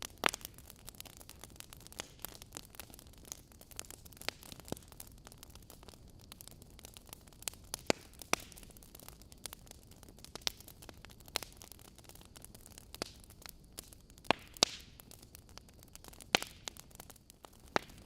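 Wood fire in a fireplace crackling: burning logs popping and snapping at irregular intervals over a low steady hiss, with sharper pops about a second in, near 8 s, and a couple late on.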